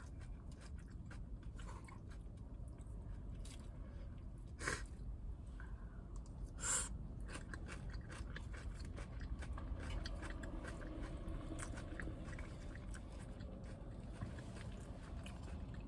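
A person chewing salad up close, with small moist clicks and crunches of mouthfuls. Two louder short clicks come at about a third and halfway through.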